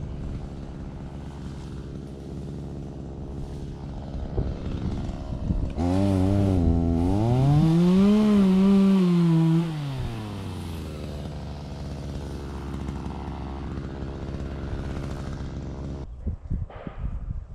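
Two-stroke chainsaw running at idle, then revved hard for about four seconds before dropping back to idle. Its engine cuts off suddenly near the end.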